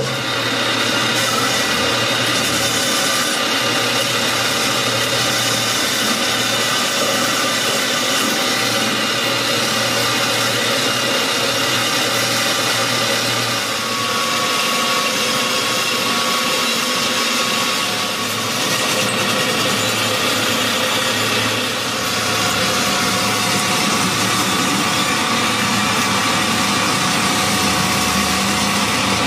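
Metal lathe running steadily with its chuck spinning while a single-point tool faces the end of a scrap-iron bar, a continuous machine hum with the scrape of cutting. The level dips briefly a few times.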